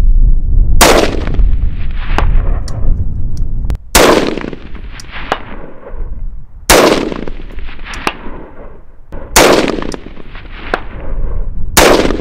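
Radian Model 1 AR-15 rifle fired five times at a slow, even pace, about one shot every two and a half to three seconds, each shot trailing off in a long echo. Fainter sharp snaps come between the shots.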